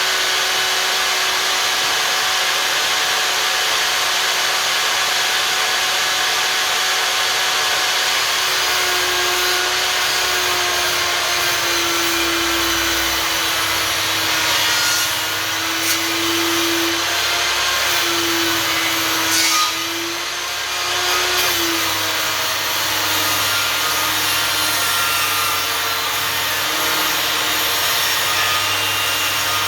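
Einhell table saw running and cutting wood: a steady whine and rush of the blade. Its tone sags slightly in pitch through the middle of the cut, and the level dips briefly about two-thirds of the way in.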